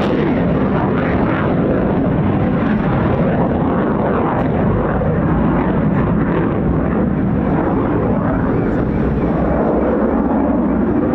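A Eurofighter Typhoon's twin EJ200 jet engines heard in flight as a loud, steady rushing noise, with no clear rise or fall.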